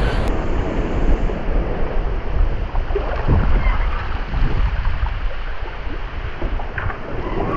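Sea water rushing and splashing along a sailing yacht's hull as it moves under sail, with wind buffeting the microphone in a heavy low rumble.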